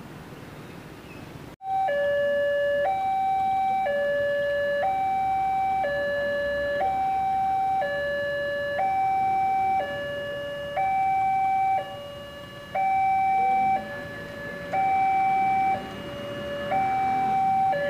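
Railroad level-crossing warning alarm from the loudspeaker on the crossing signal post: an electronic two-tone signal alternating between a higher and a lower note about once a second. It sounds while the barriers are down and the red light is lit, warning of an approaching train. It begins abruptly about a second and a half in.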